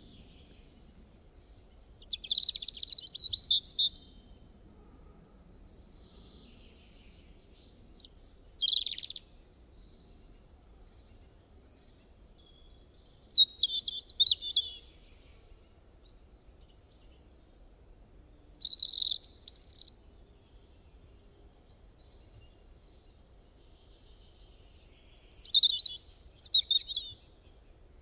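A small bird chirping: five short bursts of quick high chirps and trills, a few seconds apart.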